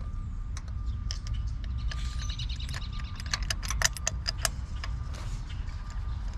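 Light metallic clicks and ticks of hand tools being worked while a new spark plug is threaded by hand into the engine, over a low steady rumble.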